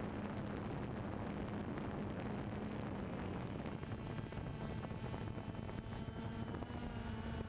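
Drone's motors and propellers humming steadily in flight, with a rushing hiss of wind and airflow; the hum's pitch rises slightly about halfway through.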